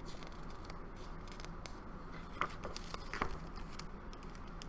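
Quiet room tone with a few soft clicks and rustles of handling, about two and a half and three seconds in.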